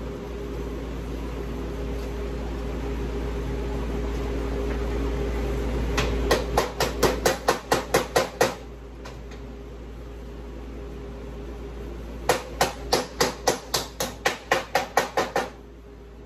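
Hand tool working on a mower deck spindle assembly: two runs of quick, evenly spaced metallic clicks or taps, about five a second, each lasting about three seconds, over a steady hum.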